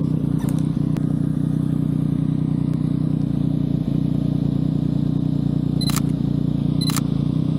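Two camera shutter clicks about a second apart, near the end, over a steady low rumble.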